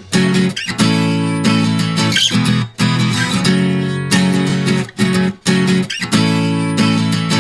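Background music: a guitar-led track, strummed chords with short breaks between them.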